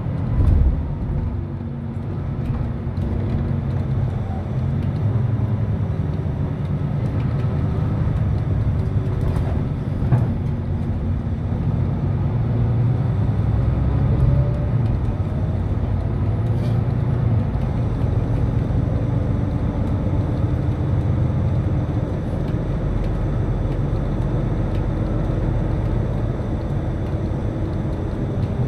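Ride noise inside a moving city bus: a steady low engine and road rumble with a faint wavering whine above it, and a few short clicks or rattles.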